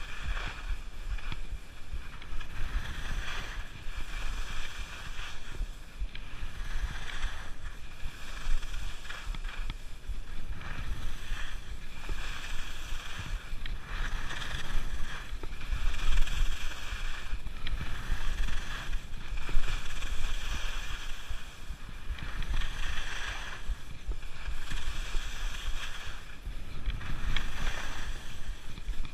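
Skis scraping and swishing over soft spring snow through a run of turns, the noise rising and falling every couple of seconds, with wind rumbling on the microphone.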